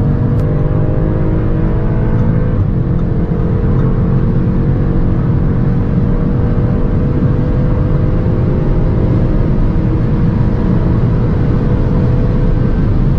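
Turbocharged 2.0-litre four-cylinder car engine at full throttle, accelerating at high speed with its pitch rising. A gear change comes about two and a half seconds in, and after it the pitch climbs more slowly.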